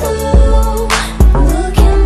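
Background music: an R&B-style song with a steady beat.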